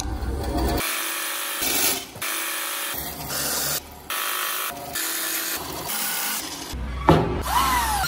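Power woodworking tools cutting solid wood in a series of short clips, each sound changing abruptly to the next. Near the end a tool's whine dips and rises in pitch under load.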